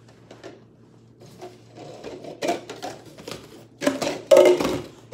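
Red plastic party cups knocking and clattering as they are slid down into one another to nest them. Light scattered clicks at first, then busier clattering from about halfway, loudest a little before the end.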